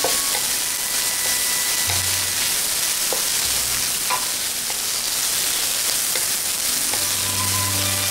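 Mixed vegetables (broccoli, carrots and onion) sizzling steadily as they are stir-fried in a hot metal wok. A wooden spatula scrapes and taps against the pan now and then.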